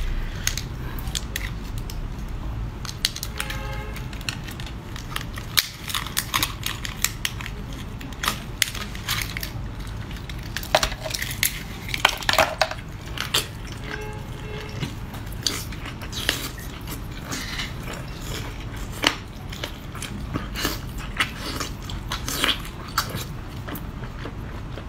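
Close-up eating sounds of seafood: repeated crunching, cracking and chewing, with many short sharp clicks scattered irregularly.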